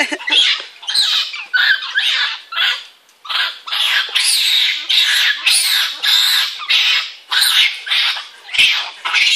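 Several monkeys giving high-pitched calls in quick succession, about two a second, with a short lull about three seconds in.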